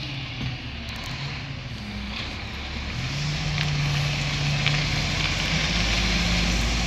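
Diesel engine of a Mack LE McNeilus rear-loader garbage truck running as the truck moves off, its low engine note growing louder about three seconds in.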